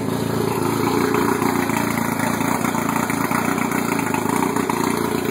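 115 hp Mercury outboard motor idling steadily in reverse gear, run out of the water on a garden-hose flush.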